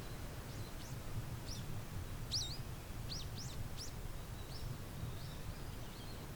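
A small bird calling a quick series of sharp, high chirps, some sweeping up and some down, with the loudest about two seconds in, over a steady low rumble.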